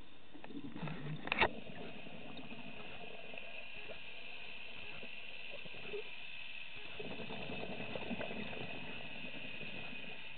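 Underwater sound through a camera housing: a steady hiss, with the gurgle of a scuba diver's exhaled bubbles twice, about six seconds apart, and one sharp click about a second and a half in.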